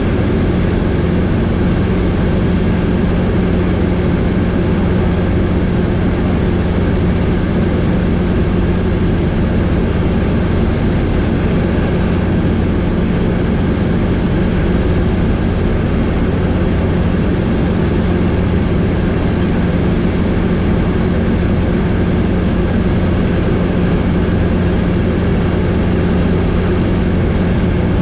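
Helicopter in flight: steady rotor and engine drone with a constant low hum and no change in pitch.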